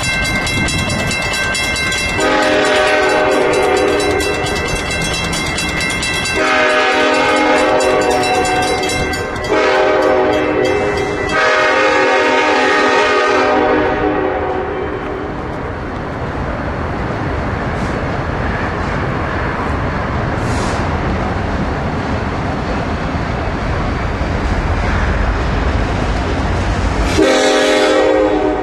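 Diesel locomotive air horn sounding the grade-crossing pattern: long, long, short, long, with a high squeal in the first two seconds. The train then rumbles past steadily, and the horn sounds again near the end.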